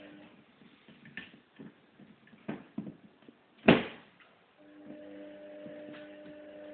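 Wire fox terrier chewing and tearing at his toy box: scattered crunches and knocks, the loudest about three and a half seconds in.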